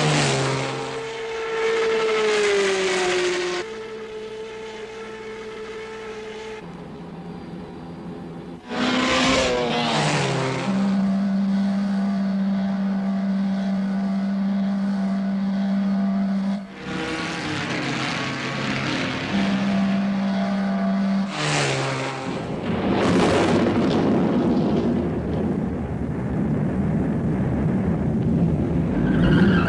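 Cartoon race-car engine sound effects: steady engine drones that jump abruptly to new pitches several times, with falling whines as cars sweep past. For the last third a dense noisy rumble takes over.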